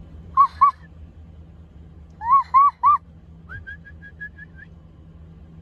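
A young child trying to whistle, producing short rising-and-falling hooting notes: a pair about half a second in and three more a couple of seconds later. A quieter quick run of short, higher chirps follows.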